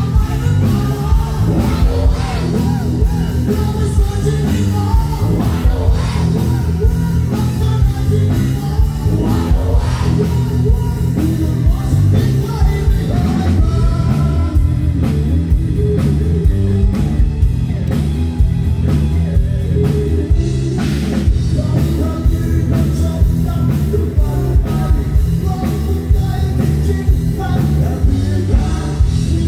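Live rock band playing loudly through a PA system: a male singer singing in Thai over drum kit, electric guitar and bass.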